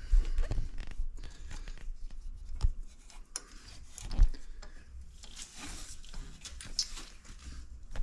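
Hands working a bolt and synthetic winch rope into the winch mount in a cramped space: scattered small metal clicks and scraping, with a few dull knocks, the loudest about four seconds in, and a stretch of rubbing near the end.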